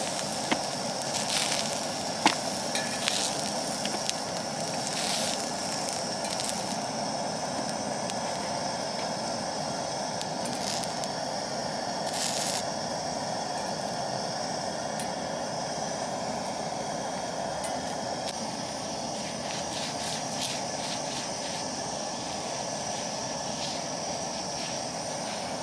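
Oil sizzling and crackling on a hot seasoned iron plate over the steady rush of a SOTO ST-301 gas single burner. Metal tongs click against the plate several times in the first few seconds.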